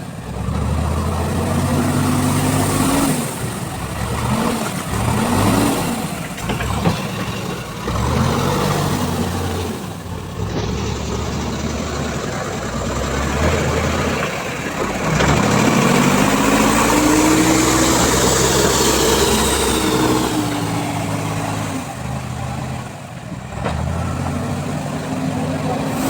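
Heavy vehicle's engine at work, repeatedly revving up and dropping back, with a longer, higher rev about two-thirds of the way through.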